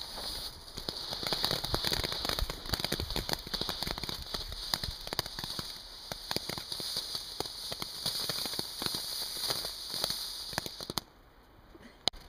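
A small 'Bienchen' (little bee) spinner firework burning: a steady high hiss with dense crackling that cuts off suddenly about eleven seconds in. A single sharp crack follows about a second later.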